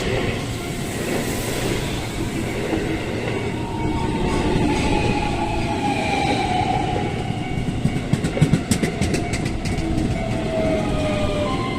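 Keihan electric train passing over a level crossing: a steady running noise under a slowly falling motor whine, with a quick run of wheel clacks over the rail joints about eight to ten seconds in.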